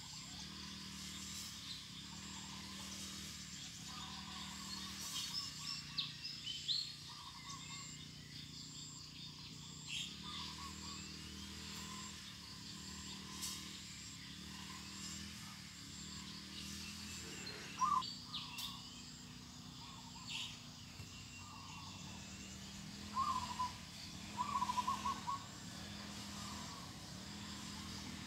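Birds calling and chirping in short, scattered bursts, with a cluster of calls near the end, over a faint steady low hum.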